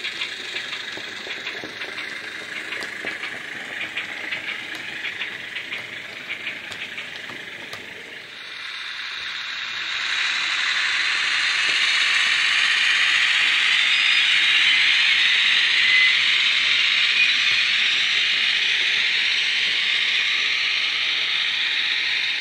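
Model locomotive sound decoder (ESU Loksound 5 in a Hornby Sentinel shunter) playing its rail clank function: a quick run of clicks like wheels over rail joints. About eight seconds in, a loud steady hiss rises and holds, then cuts off suddenly at the end.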